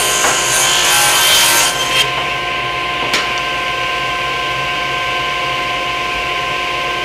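Table saw running with a steady whine, ripping a thin wooden strip for about the first two seconds, with a rasping cutting noise over the motor. The blade then spins freely, with a couple of sharp knocks about two and three seconds in.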